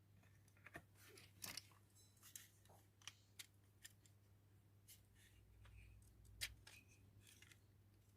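Faint scattered clicks and short scrapes of small plastic model parts being handled and pressed together, over a low steady hum.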